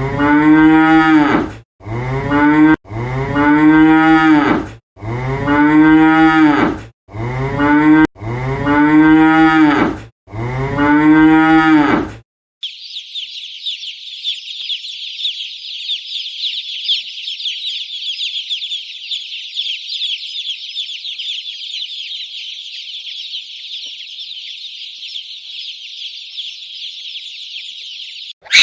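A bovine mooing: six long, low calls, one after another with short pauses. About twelve seconds in it stops, and a dense, continuous high-pitched chirping chorus, as from a flock of small birds or chicks, fills the rest.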